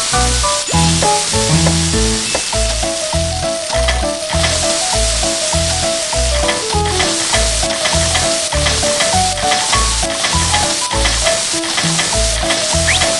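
Food sizzling steadily as it fries in a pan, mixed with background music that has a steady beat and a bouncy melody.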